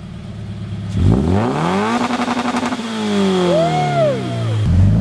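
Car engine revved once from idle: the pitch climbs quickly about a second in, holds briefly at high revs with a rapid stutter, then falls back to idle.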